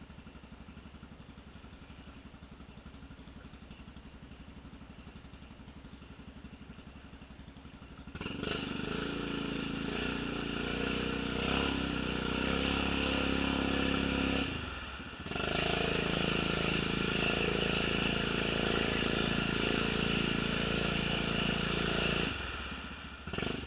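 Honda Rubicon ATV engine running quietly at first, then about eight seconds in running much louder under throttle. It briefly drops off twice, once midway and once near the end.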